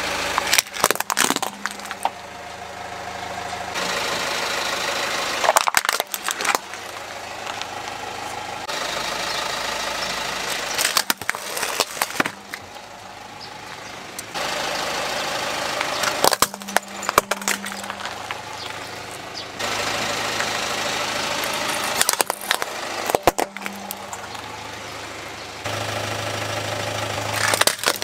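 Plastic toys cracking and snapping as a car tyre rolls over and crushes them, a short cluster of sharp breaks about every five or six seconds. Between the crushes the car's engine idles steadily.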